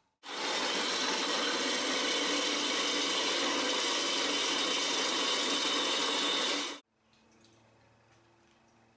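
A power tool running steadily with a loud hissing noise, cutting in abruptly just after the start and stopping abruptly about seven seconds in. A faint low hum follows.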